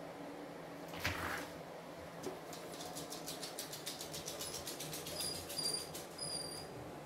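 A small dog's claws clicking quickly on a laminate floor as it trots across the room, with three short high-pitched beeps near the end of the run. A short rustle about a second in.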